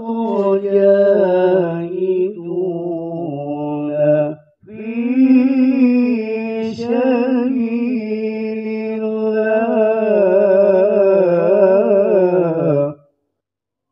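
A man reciting the Quran in the melodic tilawah style into a handheld microphone, with long held phrases and ornamented, wavering pitch. He takes a short breath about four and a half seconds in, then sings one long phrase that ends shortly before the end.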